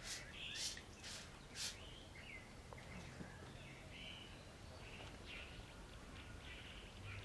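Hand trigger spray bottle squirting four times, about half a second apart, misting liquid onto leaves. Faint birds chirp in the background afterwards.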